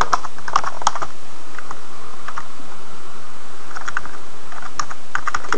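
Typing on a computer keyboard: quick runs of key clicks, with a pause of about a second midway.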